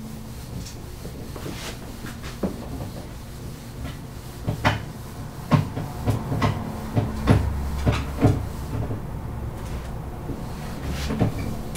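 Dry-erase marker strokes and taps on a whiteboard: a series of short, irregular clicks and knocks, busiest in the middle of the stretch and again near the end, over a steady low hum.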